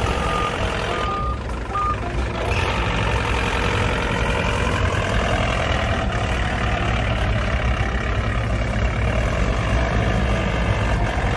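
Heavy vehicle engine running steadily, with three short reversing beeps in the first two seconds.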